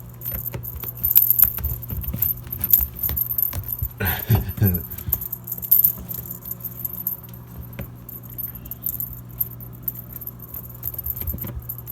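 Light metallic jangling and rattling clicks over the steady low hum of a running washing machine.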